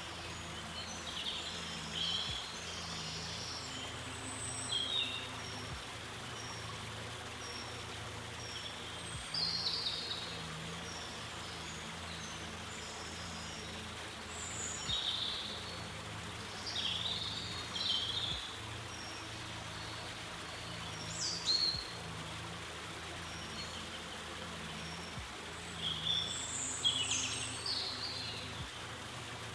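Small songbirds singing short, high chirping phrases every few seconds over a steady background hiss and a faint low hum.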